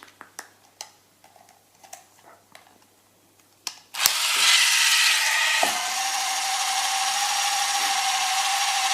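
Small plastic clicks from handling the AutoMee screen-cleaning robot, then a click about four seconds in as it is switched on and its small motor starts a loud, steady whirr, settling to a lower steady tone about a second and a half later.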